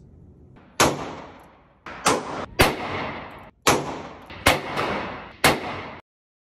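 A chopped-down Taurus 856 .38 Special snub-nose revolver fires about six shots in an uneven string, each crack trailing off in indoor-range echo. The sound cuts off abruptly near the end.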